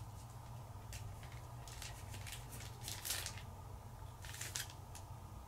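Faint, scattered crinkles and taps of small foil Pokémon booster packs being handled one by one as they are counted, over a low steady hum.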